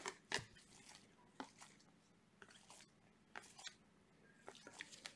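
Faint, scattered soft clicks and slides of Optic basketball trading cards being flipped one by one through a stack in gloved hands.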